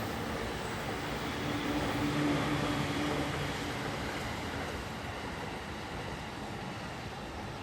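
Keikyu electric train running on the rails, its noise slowly fading as it moves away, with a brief low motor tone partway through.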